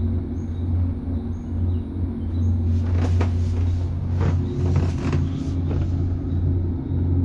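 Steady low hum and rumble of a rainforest cable-car gondola riding along its cable, heard from inside the cabin. A short run of clattering knocks comes in about three seconds in and dies away about six seconds in.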